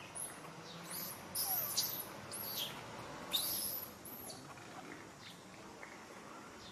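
A run of short, shrill, very high-pitched animal squeals, each quickly rising and dropping in pitch. They are bunched in the first four seconds and loudest a little under two seconds in, then only faint calls follow over a steady low hiss.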